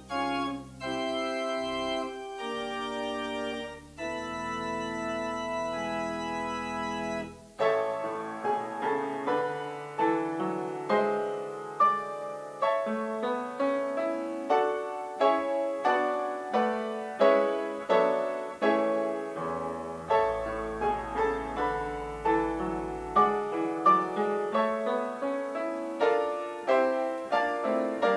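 Church organ holding sustained chords for the first seven or so seconds, which then stop. A piano follows, playing a flowing passage of quick notes that each ring and fade.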